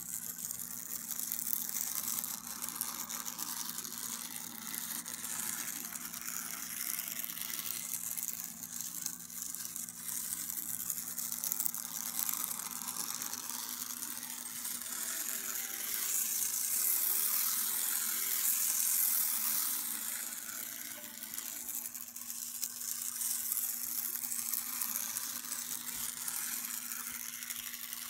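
Tiny 13-ohm 4 mm motor of a T gauge 1:450 steam locomotive chassis whirring as the model runs around its track, a high thin buzz that swells louder past the middle as the speed rises, then eases off.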